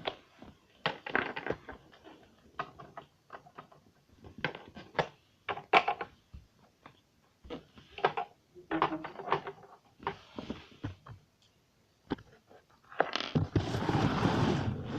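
Small plastic toy figures and play pieces being handled and set down: scattered light clicks and taps, then a longer, louder burst of rustling and scraping near the end.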